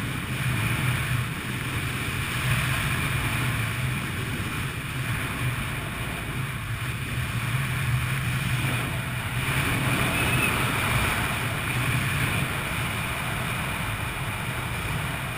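Steady wind rushing over a helmet-mounted camera's microphone during parachute canopy flight, with slow swells in level and no distinct events.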